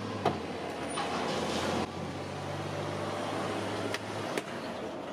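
Plastic interior trim panel being pulled off a car's lift gate, its clips clicking and the plastic rustling as it works loose. A steady low hum runs underneath.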